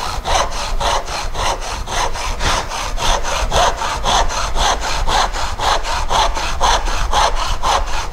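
Tenon saw cutting across a small piece of timber held on a bench hook, in quick, even back-and-forth strokes.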